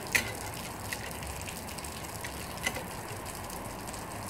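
Steady hiss of heavy rain, with a few light metallic clicks as a nut and bolt are tightened through a rivet hole of a motorcycle's floating brake disc.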